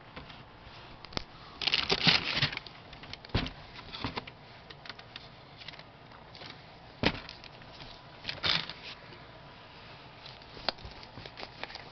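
Handling noise from basketball sneakers being moved and turned in their cardboard shoebox: scattered rustles, the longest about two seconds in, and a handful of short, soft knocks.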